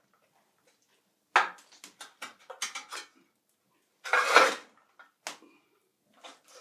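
Iron hearth tools scraping and clanking against the coals and hearth in irregular bursts, the longest a half-second scrape about four seconds in.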